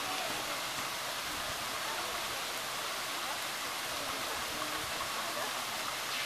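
Steady splashing hiss of a spray of shower water pouring into a pool.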